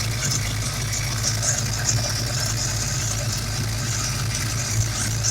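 Small-block Ford Windsor V8 idling steadily, with a high hiss over the low engine note from unmetered air drawn in past a leaking fuel-injector O-ring on cylinder 7: a vacuum leak.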